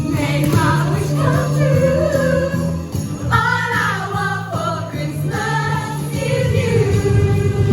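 Music: a sung melody over steady bass notes, with jingle bells.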